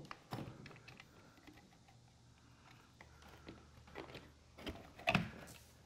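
Faint handling noises as an HDMI cable is fed through a plastic recessed outlet plate: scattered small clicks and rustles, with a couple of sharper clicks about five seconds in.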